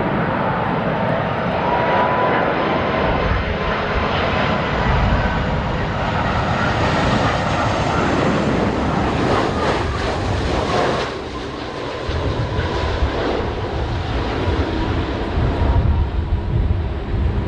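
Jet airliner's engines whining and rumbling as it passes low on its landing approach. The sound drops off about eleven seconds in, leaving a low rumble.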